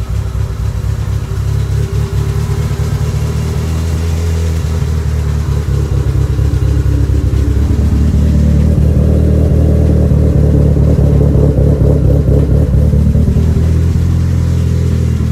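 Turbocharged 4G63 four-cylinder engine of an Eagle Talon TSi idling steadily on freshly fitted spark plugs, with an even low exhaust pulse. It gets louder about halfway through as the microphone nears the rear of the car.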